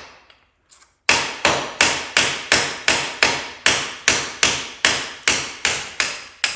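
Hammer blows on a rusted, seized steel bolt, driving it out of the chassis. After a pause of about a second comes a steady run of about fifteen sharp metallic strikes, nearly three a second, each ringing briefly.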